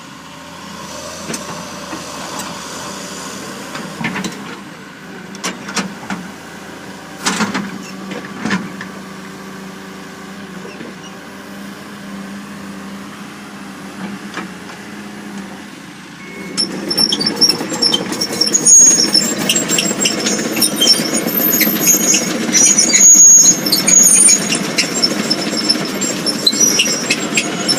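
John Deere 200D LC crawler excavator's diesel engine running at a steady note, with a few clicks and knocks. About sixteen seconds in the machine gets much louder, with high metallic squeals and rapid clanking over the engine.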